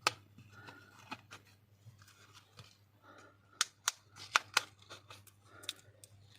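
A series of sharp, irregular plastic clicks and snaps, about seven, from a smartphone's casing being worked and pried open by hand.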